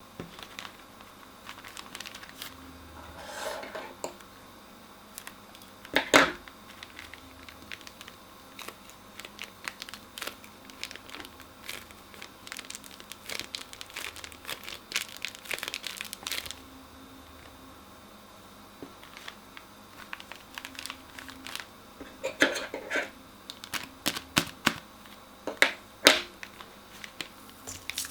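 Crunchy slime and plastic piping bags being squeezed and handled: irregular crackling and crinkling that comes in clusters, with one sharp, loud crack about six seconds in.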